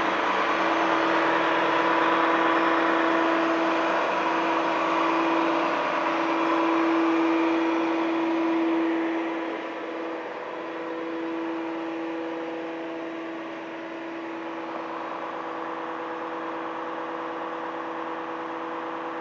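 Volvo FM high-reach fire truck's diesel engine running steadily with a steady whine while it powers the hydraulic aerial boom. The sound is a little quieter from about ten seconds in.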